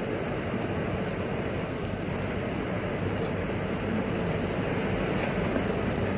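Gas ring burner with its flame turned high, giving a steady, even rushing noise.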